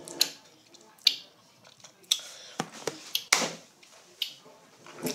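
A person reacting to an intensely sour candy: sharp smacking clicks about once a second, with a loud breathy huff a little over three seconds in.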